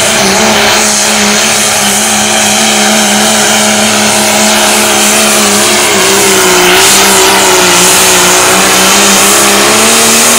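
Modified big-power diesel truck engine held at high revs under heavy load on a pull, a loud, steady drone with a wide hiss over it. The pitch sags slightly about six seconds in, and the sound cuts off suddenly at the end.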